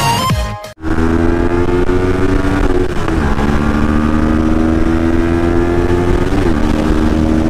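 Electronic dance music breaks off abruptly, then a CFMoto 400NK motorcycle's parallel-twin engine runs under acceleration with wind rushing over the microphone. Its pitch climbs slowly and drops at two upshifts, about three seconds in and near the end.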